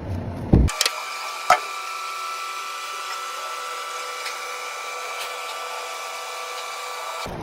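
Steady electric buzzing hum of a small welding machine, with a few sharp crackles. It starts suddenly under a second in and cuts off suddenly near the end.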